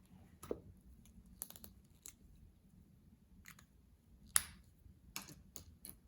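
Scattered small plastic clicks and taps from gel pens being handled, eight or so spread irregularly, the sharpest about four seconds in.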